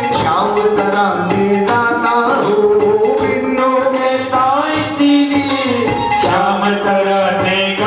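Hindi devotional bhajan sung by a male singer through a microphone, with tabla and melodic accompaniment keeping a steady beat.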